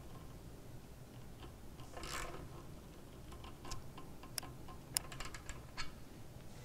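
Click-type torque wrench being ratcheted on a heat press's clamping screw. A brief rasp comes about two seconds in, then a run of small sharp clicks, the sharpest just past the middle. The wrench is being tightened until it clicks at its set torque of 17.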